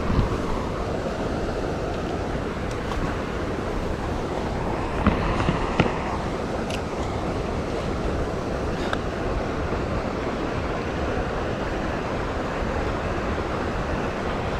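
Steady rushing of water below a dam spillway. A few faint clicks come from a spinning reel being cast and retrieved.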